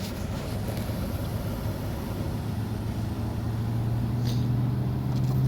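An engine running steadily, its low note rising a little and growing louder toward the end.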